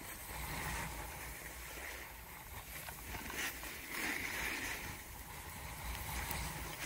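Snowboard sliding over packed, groomed snow: a continuous scraping hiss that swells several times as the board turns and the edges bite, over a low rumble of wind on the microphone.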